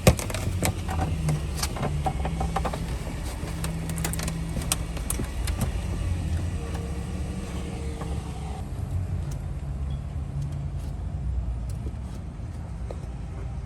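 Car engine idling steadily. Scattered sharp clicks and rattles in the first half come from a turn-signal bulb and its plastic socket being worked into the light housing.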